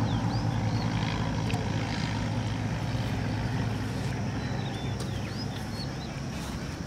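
A motor engine runs with a steady low drone that slowly fades toward the end. A few short, high bird chirps sound over it.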